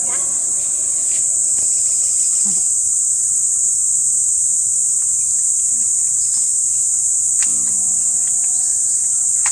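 A loud, steady, high-pitched drone of insects.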